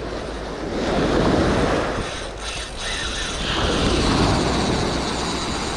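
Surf washing in and wind buffeting the microphone, swelling about a second in and again around four seconds in.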